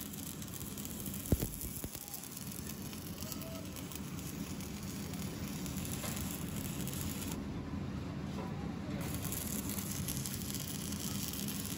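Electric arc welding on a steel tank fitting: the arc crackles and sizzles steadily. A single sharp click comes about a second in.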